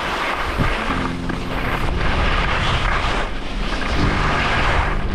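Wind rushing over the microphone as a steady, rough noise. Low steady tones come in about a second in and again near the end.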